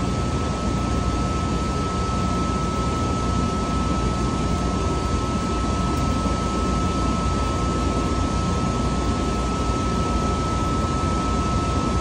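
Steady drone of running machinery in a centrifugal chiller's plant room, with a constant high whine above it.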